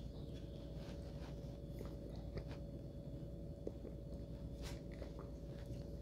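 Faint mouth sounds of someone tasting beer: scattered small lip smacks and tongue clicks over a steady low hum.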